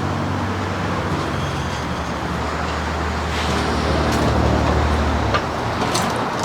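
A vehicle engine running with a steady low hum over outdoor background noise. The hum swells about four seconds in, then cuts off suddenly, followed by a few sharp clicks near the end.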